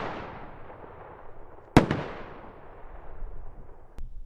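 Stealth Fireworks Trident Warheads rocket shells bursting: the echo of one bang dies away at the start, then a second loud, sharp bang comes about two seconds in and echoes away. A faint click near the end.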